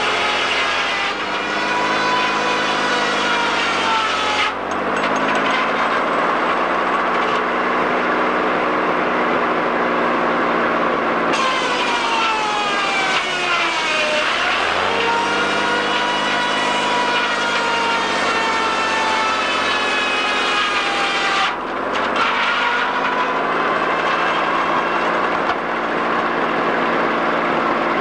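Sawmill head saw running and cutting logs as the carriage feeds them through. Its whine sags in pitch as the blade takes the load of each cut, then comes back up. This happens three times, most deeply about halfway through.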